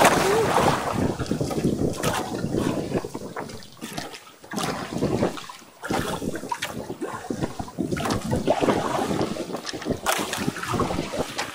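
Wind gusting over the microphone, with water sloshing against the hull of a small outrigger boat; the rush swells and dips a few times.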